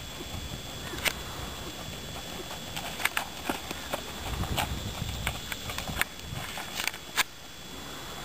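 Hoofbeats of a ridden horse working on a sand arena, with a few sharp, irregularly spaced clicks scattered through.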